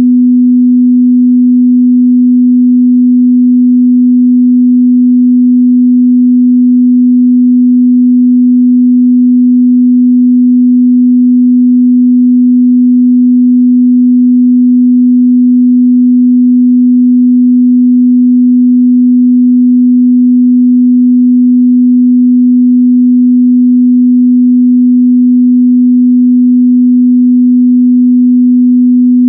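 Steady 248 Hz sine-wave test tone, a single pure, unchanging pitch in the mid-bass at constant loudness.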